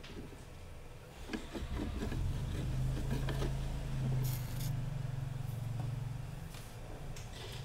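Light clicks and scrapes of multimeter probe tips on a circuit board, over a low hum that swells about two seconds in and eases toward the end.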